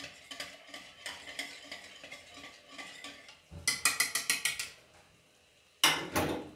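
Wire whisk beating a cornflour-and-water slurry in a ceramic plate, its wires ticking against the plate. About halfway through it speeds into a quick run of louder strokes, about seven a second. Near the end comes one sharp clatter.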